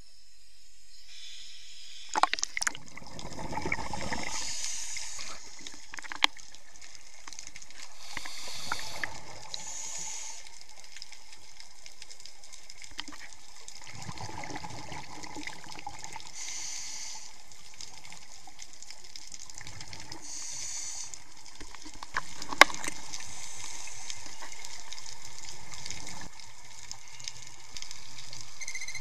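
Scuba diving heard through an underwater camera housing: a diver's regulator, with hissy inhalations every few seconds and gushing, bubbling exhalations over steady water hiss. A few sharp clicks stand out, the loudest about two-thirds of the way through.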